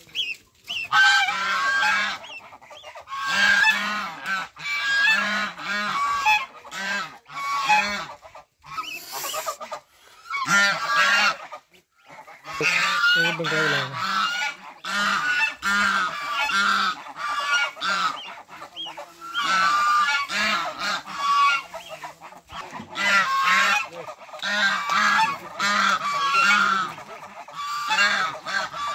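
A flock of domestic geese honking over and over, the calls often overlapping, with a couple of short lulls.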